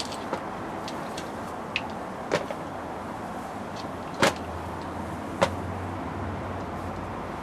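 Several short sharp clicks and knocks of small plastic and metal parts and tools being handled while an RC car is taken apart, the loudest a little past halfway, over a steady background hiss.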